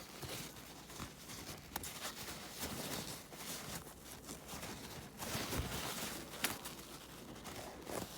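Paper towel rustling and rubbing as it is worked inside a small RC buggy shock body to wipe out old shock oil and dirt, with scattered light clicks from handling the shock parts.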